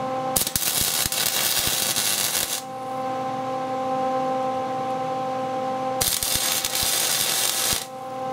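MIG welder laying two short rosette plug welds that join a steel sleeve to an AK rifle barrel through its holes. Each weld is a burst of crackling about two seconds long, the first starting just after the start and the second near the end, over a steady hum.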